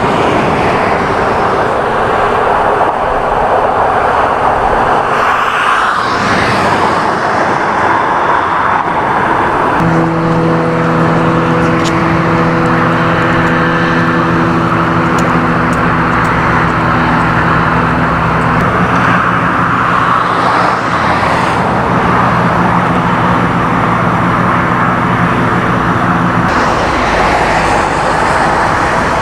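Freeway traffic passing steadily, swelling as vehicles go by. From about ten seconds in until near the end, a vehicle engine hums at a constant pitch underneath.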